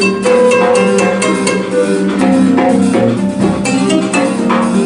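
Live ensemble music with plucked strings and guitar playing quick runs of notes over a sustained low note.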